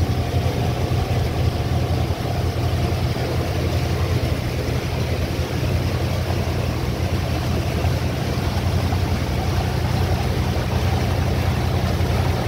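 Motorboat engine running steadily at speed, a low even drone over the rush of water from the wake.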